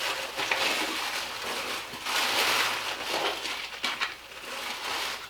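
Packaging rustling and crinkling in irregular bursts as items are taken out of a box, with a few small clicks.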